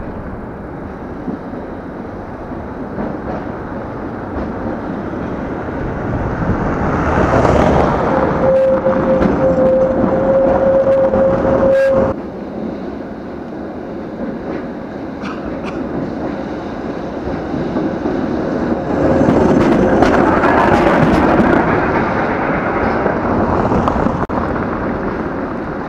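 A tram rolling past close by on street tracks: a rumble and clatter of wheels on the rails, with a steady high whine for a few seconds that cuts off suddenly. Cars pass on the cobblestones, building to a second loud pass later on.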